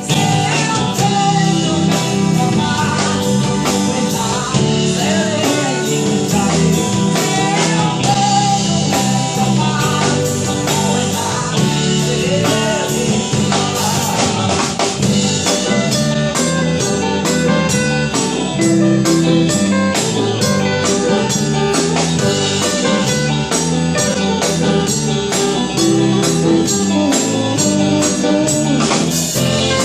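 A rock band playing a song, with drum kit, electric guitars, bass guitar and keyboard, while a male lead vocalist sings over a steady drum beat.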